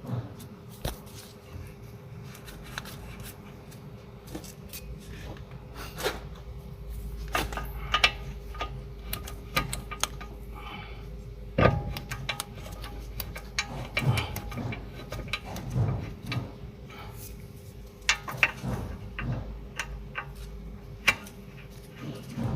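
Scattered metal clicks, clanks and knocks of hand tools and parts being handled, irregular and short, over a steady faint hum.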